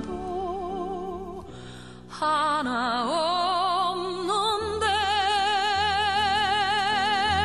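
A song: a singer holding long notes with a wide vibrato over a steady backing accompaniment, softer for a moment about two seconds in and then fuller again.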